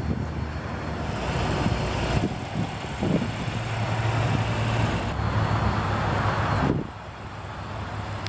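A car engine idling steadily with a low, even hum. The sound drops away sharply near the end.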